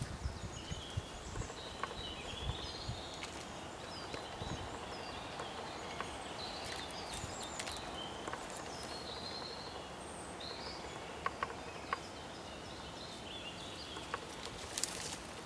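Small birds singing and chirping in short, overlapping twittering phrases, with scattered sharp clicks and a few low thumps in the first few seconds.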